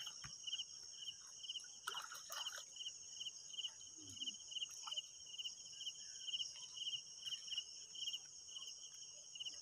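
Insects chirping in a steady pulse about three times a second, over a continuous high-pitched buzz.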